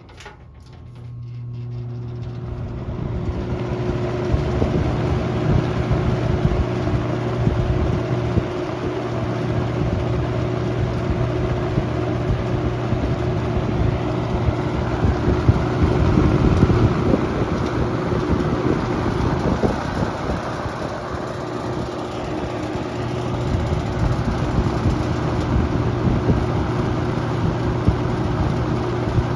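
Toastmaster 4437 box fan spinning up to high speed over the first few seconds, then running steadily: a loud rush of air over a steady motor hum.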